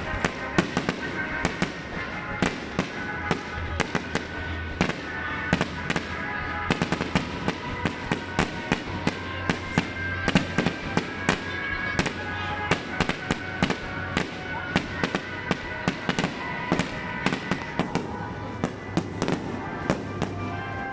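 Aerial firework shells bursting in a rapid, irregular string of sharp bangs and crackles, over music.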